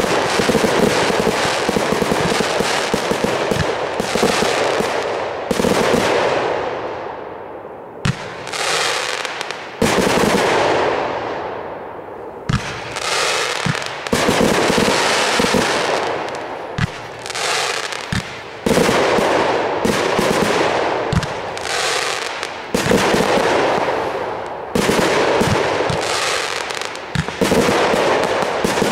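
Aerial fireworks bursting in quick volleys: sharp bangs over a dense crackle of stars. The crackle dies away a few times, and each time a new volley of bursts starts up.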